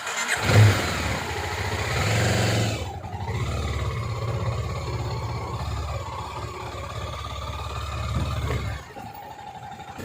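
Kawasaki Ninja 250 motorcycle engine with an aftermarket Akrapovic exhaust, heard under way. It revs up in the first few seconds, then runs steadily, and the sound drops away near the end.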